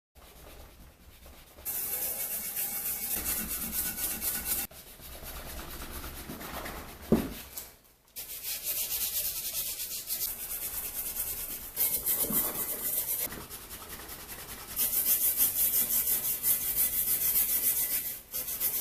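Hand scrubbing and rubbing on the metal of a vise to strip grime and old paint, heard as stretches of dry scraping that stop and start abruptly. There is a single sharp knock about seven seconds in.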